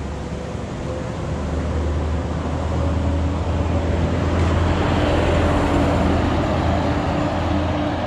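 Road traffic on a main road: a steady rumble of tyres and engines that swells as a vehicle passes, loudest about five or six seconds in, then eases off.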